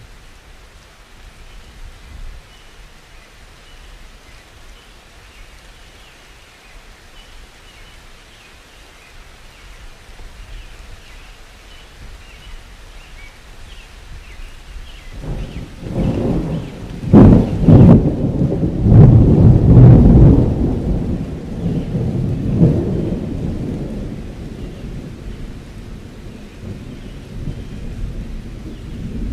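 Rain falling with a soft steady hiss, then about halfway through a long roll of thunder: a low rumble that builds to a couple of sharp claps, swells, and fades away slowly. Another rumble begins near the end.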